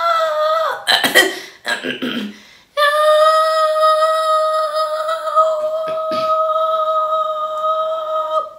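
A young woman's voice singing: a held high note breaks off about a second in, a brief rough noisy sound follows, then she holds one long, very steady note for about six seconds that stops just before the end.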